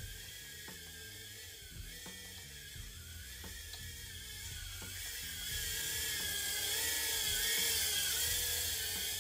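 Tiny Whoop FPV drone's small motors and propellers whining, the pitch wavering up and down with the throttle. The whine grows louder and higher from about halfway through.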